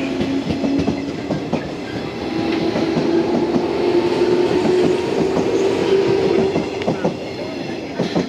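JR 115-series electric train pulling out and accelerating past: its traction-motor hum climbs in pitch while the wheels clack over the rail joints. The sound peaks in the middle and eases as the last car clears, with a final sharp clack near the end.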